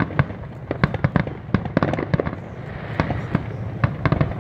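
Fireworks finale barrage: aerial shells bursting in rapid succession, many sharp bangs a second, irregularly spaced and overlapping.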